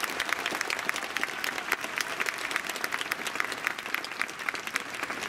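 Stadium crowd applauding, with many sharp individual hand claps over a steady patter of clapping.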